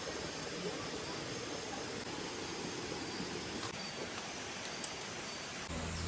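Steady outdoor background noise, an even hiss with a few faint ticks. A low steady hum comes in near the end.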